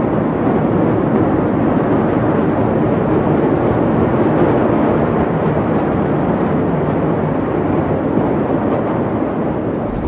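A loud, steady rumbling rush of noise with no distinct bangs or pops.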